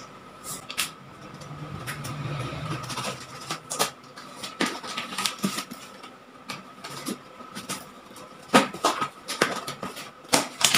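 A small knife cutting and scraping along the top of a cardboard shipping box, with irregular clicks, taps and rustles of cardboard. Near the end, sharper cracks as the box flaps are pulled open.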